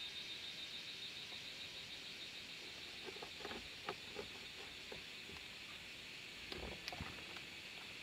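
Soft rustling and small clicks of a synthetic rope being wrapped and pulled tight around a wooden post, with a few light knocks near the end. A steady high insect buzz runs underneath, fading over the first few seconds.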